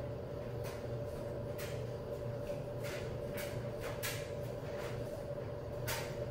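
Steady low electrical hum with a constant higher tone, and a few soft brief rustles at irregular moments as hands move.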